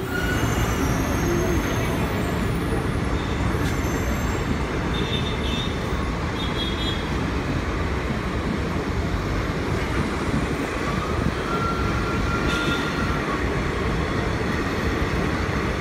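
Blue ICF passenger coaches of an Indian Railways express rolling past close by, a steady rumble and clatter of wheels on the rails as the train picks up speed.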